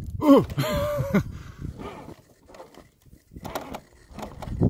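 A loud, drawn-out vocal cry lasting about a second, its pitch bending, followed by a low rumble and scattered faint knocks.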